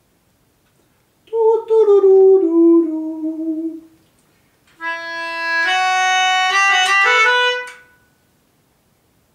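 Melodica played through its mouthpiece tube. First comes a short descending phrase of a few notes, then, after a brief pause, a second phrase of steady stepped notes with some sounding together before it stops.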